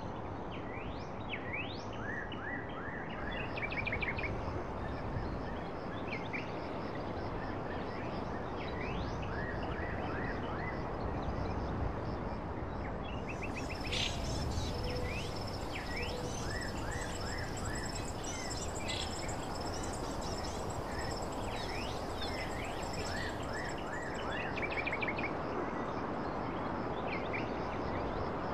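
Many short bird chirps and calls repeating over a steady background hiss.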